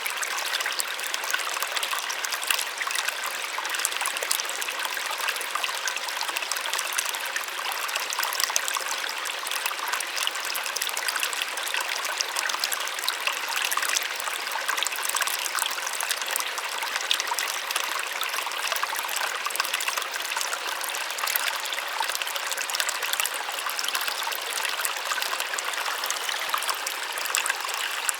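Small waterfall splashing steadily, a soft, even rush of falling water with fine spattering and no deep rumble.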